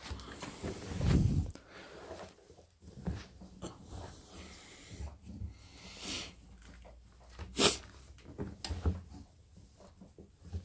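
Clothes being stuffed by hand into a front-loading washing machine drum: fabric rustling and brushing, with a loud low thump about a second in and a sharp knock later on.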